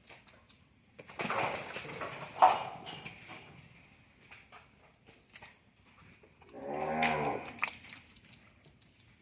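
A cow moos once, a short call of about a second, some seven seconds in. Before it comes a couple of seconds of rough, noisy rustling with one sharp peak.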